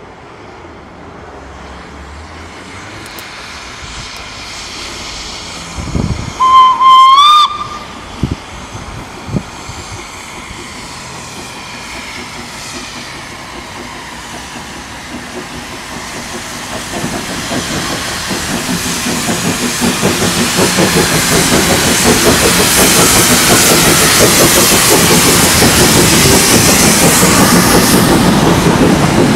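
Hudswell Clarke 0-6-0ST saddle-tank steam locomotive sounding its whistle once, about six seconds in, a single note held for about a second and a half that rises in pitch at its end. Then the locomotive's exhaust beats and the rumble and clatter of its train of tank wagons grow steadily louder as it draws near and passes.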